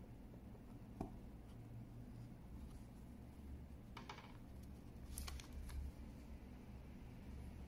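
Faint handling sounds of a hard plastic caliper case and its paper inserts: a single click about a second in as the lid is opened, then a short paper rustle and a few light clicks a little past the middle.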